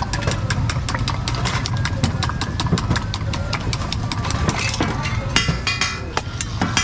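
Metal spoon clattering rapidly against a steel tumbler as eggs are beaten, a fast run of sharp clicks that thins out near the end, over a steady low hum.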